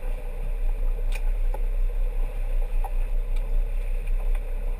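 Fishing boat's engine running in gear, a steady low rumble with water rushing along the hull and a few faint knocks.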